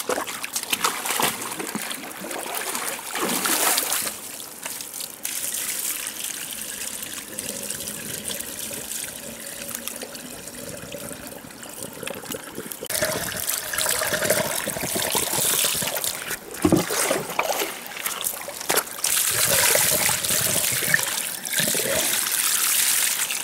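Water splashing and trickling, with louder splashes now and then.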